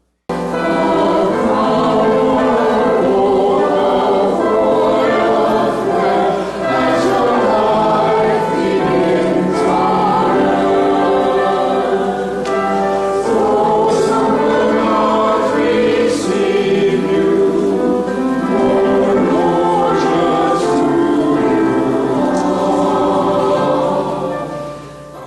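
Many voices singing together in sustained notes, a church choir-style hymn. It cuts in abruptly at the start and fades out just before the end.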